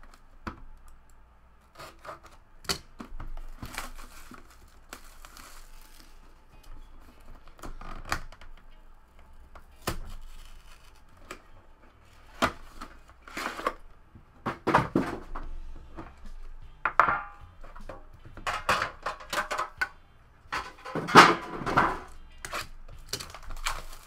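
A trading-card box being opened and handled: cardboard lids and inner boxes sliding, tapping and rustling in short scattered bursts, louder in the second half.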